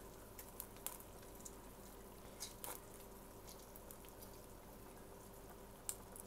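Chicken adobo simmering quietly in a stainless steel pot, with a few faint drips and small ticks as lemon juice is squeezed into it by hand, over a faint steady hum.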